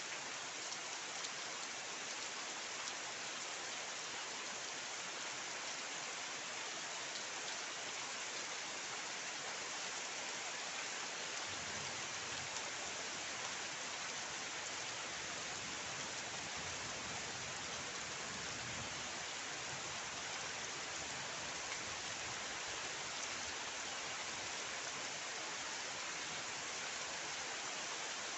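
Steady rain, an even hiss of falling drops at a constant level. A faint low rumble joins underneath about eleven seconds in.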